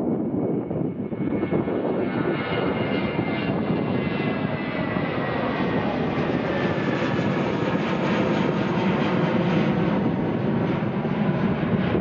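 Twin jet engines of an Air New Zealand Airbus A320-family airliner at climb power just after takeoff: a steady roar with a high whine that slowly falls in pitch as the jet climbs away.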